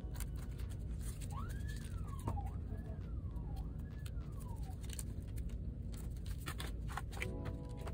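A siren wailing faintly, three rising-and-falling sweeps over about four seconds, over a steady low hum, with small clicks and taps from hands handling tape and paper.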